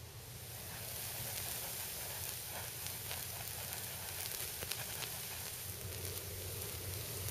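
Burning fine steel wool whirled on a wire: a steady sparking hiss with scattered sharp crackles, growing louder over the first second.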